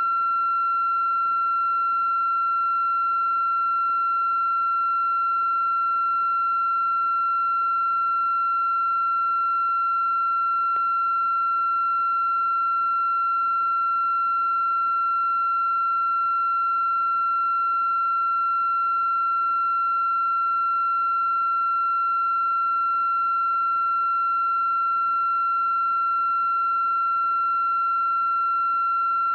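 A continuous electronic tone, steady and unchanging in pitch and loudness, with fainter overtones above it.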